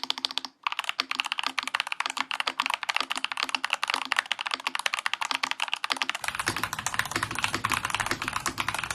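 Fast, continuous typing on a Fantech MAXFIT81 gasket-mount mechanical keyboard with an FR4 plate, fitted with tactile WS Brown switches and its case foam removed; the keystrokes sound crunchy. There is a brief pause about half a second in.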